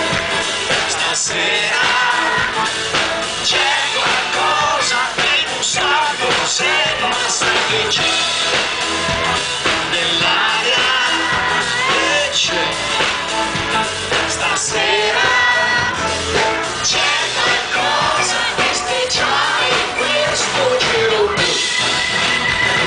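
Live rock band playing, with electric guitar, bass and drum kit under a male lead vocal, heard from the audience.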